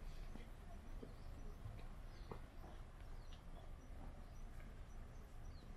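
Quiet street ambience: footsteps on asphalt as faint irregular ticks over a low rumble, with a few faint, short bird chirps.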